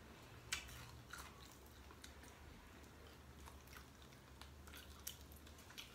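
Faint eating sounds: chewing, with small scattered clicks and cracks as cooked shellfish shells are picked apart by hand, the sharpest about half a second in.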